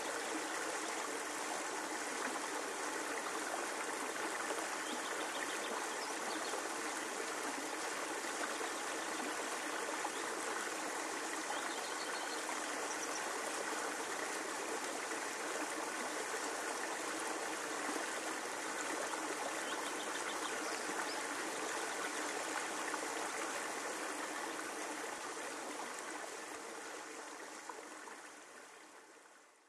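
Steady rush of flowing river water, fading out over the last several seconds.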